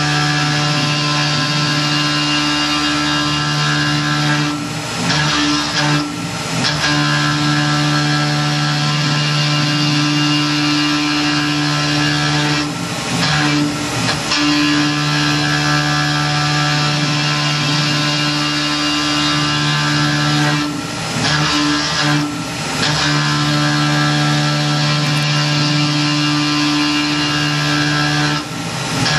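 Tormach PCNC 1100 CNC mill's end mill cutting aluminum at 4000 rpm, a steady pitched cutting tone with hiss. The tone breaks and wavers briefly about every eight seconds, four times.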